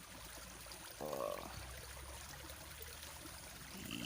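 Shallow stream water running and trickling steadily, with a short voice-like sound about a second in.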